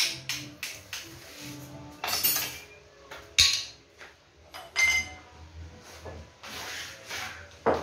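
Tools and small metal parts handled on a cluttered workbench: scraping and rubbing, a sharp click, a short metallic clink that rings briefly, and a thump near the end.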